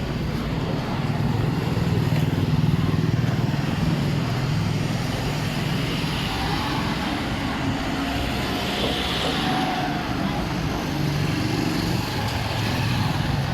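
Street traffic: motor vehicles, cars and motorbikes among them, running past with a steady low engine drone over a general street noise.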